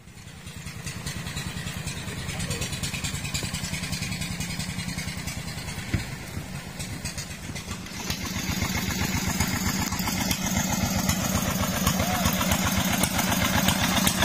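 Small stationary engine of a boat-hauling rope winch, running with a steady fast chugging beat that grows louder about eight seconds in.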